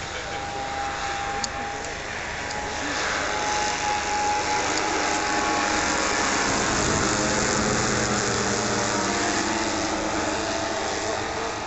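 WWII four-engined piston bombers, a B-17 Flying Fortress among them, flying past in formation. The drone of their propeller engines builds to its loudest in the middle and eases slightly near the end.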